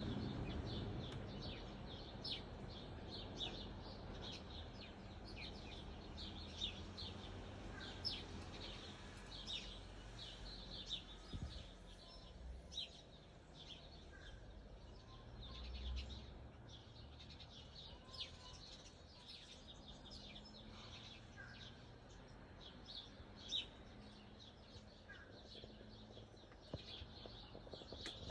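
Small birds chirping, with short high calls coming several times a second throughout, over a low steady background rumble.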